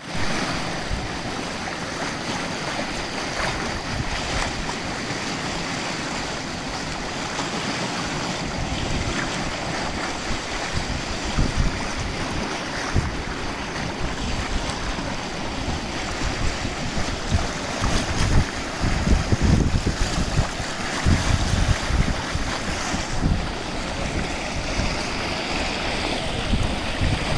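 Rushing, turbulent floodwater of a muddy river in spate churning past a bridge pier, a steady noisy rush. Gusts of wind buffet the microphone in irregular low rumbles from about a third of the way in, strongest a little past the middle.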